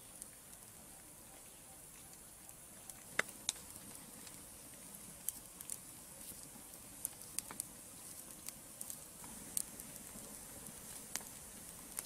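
Small wood fire crackling inside a clay fireplace, with irregular sharp pops over a faint steady hiss.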